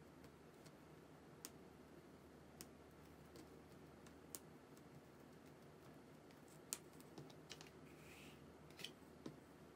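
Faint, scattered taps of a pen tip dotting a paper pattern as it is turned step by step along its seam line over another sheet, with a short rustle of paper near the end.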